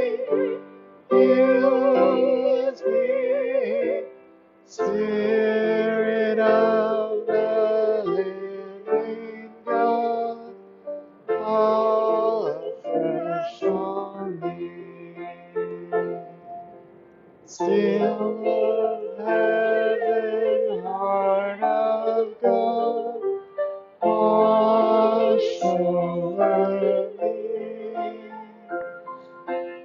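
A hymn sung slowly with vibrato over keyboard accompaniment, in long phrases with short breaks between them.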